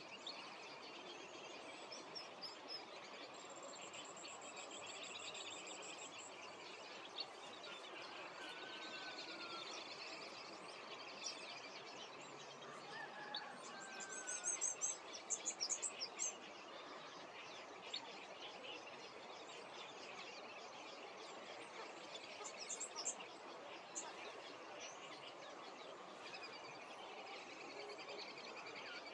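Outdoor natural ambience of birds calling over a steady background hiss: a high, fast trill about four seconds in, and a quick run of sharp high chirps around the middle, the loudest sounds, with scattered softer calls elsewhere.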